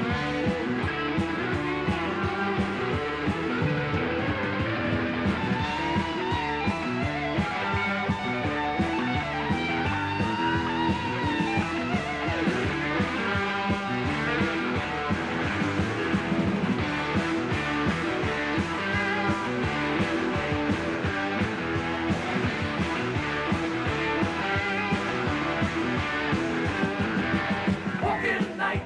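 Rock band playing live in an instrumental section, electric guitar to the fore over bass and drums with a steady beat.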